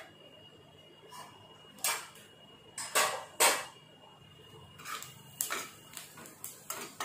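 Steel spatula scraping and knocking against a non-stick kadai, stirring cumin seeds into melted butter and oil: a handful of short clatters, the loudest about three seconds in.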